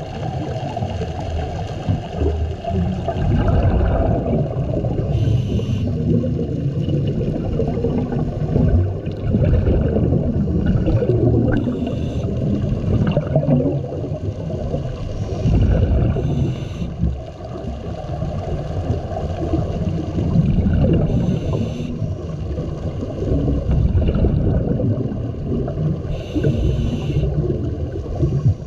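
Scuba diver breathing through a regulator, heard underwater: a short hiss about every five seconds over a continuous bubbling, rumbling wash of water.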